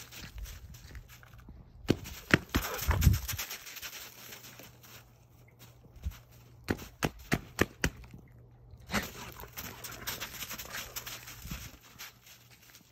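Irregular crunching footsteps in thin snow, with a louder bout of crunching about two to three seconds in and another run of sharp crunches a few seconds later.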